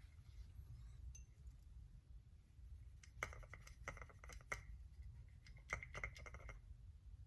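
Faint light clicks and clinks of small metal clipper parts being handled during reassembly of an Andis Master hair clipper, a cluster of taps about three seconds in lasting a few seconds, with a slight metallic ring.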